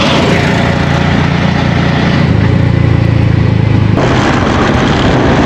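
Auto-rickshaw engine running with road noise during the ride, a steady low hum. The sound changes abruptly about four seconds in.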